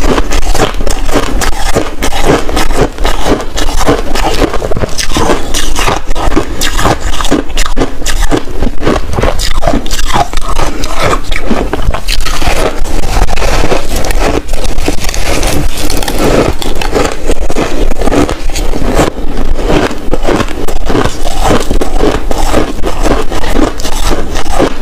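Close, loud crunching of a block of packed shaved ice being bitten and chewed: a dense, continuous crackle of many small crunches with no pause.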